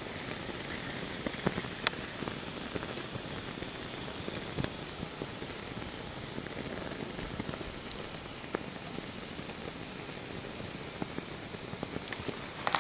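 Lego plastic burning under a red-hot steel muzzle brake: a steady hiss with a few faint scattered crackles.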